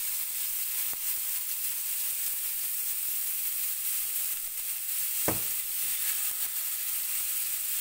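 Oil sizzling steadily on a hot dosa pan as marinated prawns are laid onto it to fry. A single sharp tap about five seconds in.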